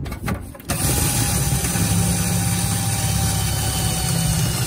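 Cordless drill running steadily under load, boring a hole through the mower's metal. It starts suddenly about a second in and stops just before the end.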